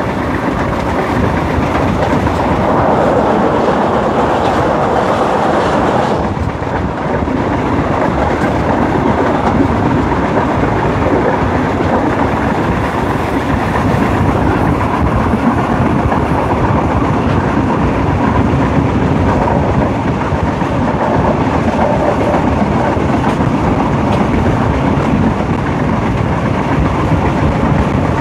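Alsthom AD24C diesel-electric locomotive running along the line at speed, heard from beside its cab: a steady mix of engine and wheels running on the rails, with a clickety-clack from the track.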